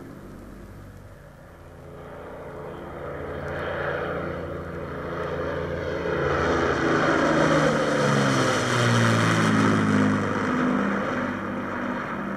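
Propeller aircraft engines droning as the aircraft flies past. The sound grows louder from about two seconds in and peaks around eight to ten seconds, where the engine pitch drops, then eases slightly.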